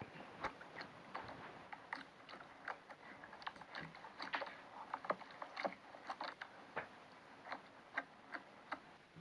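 Slime being worked by hand, giving faint, irregular little clicks and crackles.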